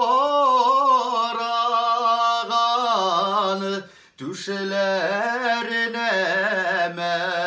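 A man singing a Tatar folk song unaccompanied, holding long notes with wavering ornaments. He breaks off for a breath about four seconds in, then starts the next phrase lower.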